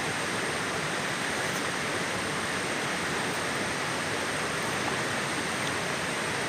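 River water rushing steadily, a constant even hiss with no change.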